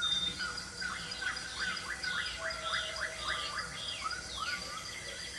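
A bird singing a quick run of chirping notes, mostly short down-slurs, that stops about half a second before the end.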